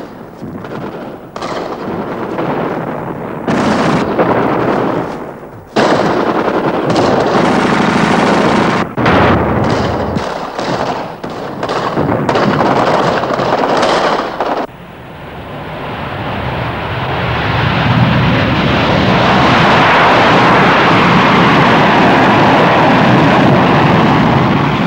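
Gunfire and explosions in short, abruptly cut bursts. About fifteen seconds in this gives way to a steady roar that swells for a few seconds and then holds: a B-52 bomber's jet engines.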